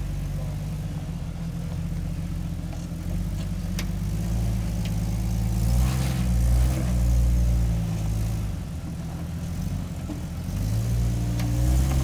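Lifted Jeep Wrangler's engine working at low speed as it crawls up a rock ledge, steady underneath and swelling louder twice as the throttle is opened, about halfway through and again near the end.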